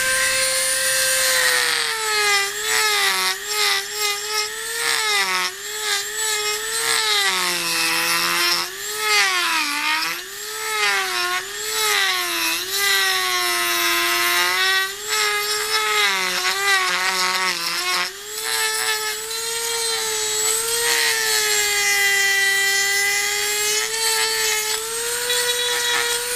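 Dremel rotary tool with a grinding bit running at high speed, grinding into a wooden CO2 dragster body. Its whine dips and wavers in pitch again and again as the bit bites and is eased off, with a rasping grinding noise over it.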